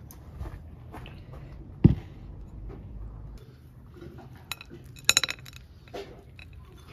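A glass bowl set down on a wooden table with a dull thump about two seconds in, followed by light taps and, about five seconds in, a quick run of ringing glass clinks.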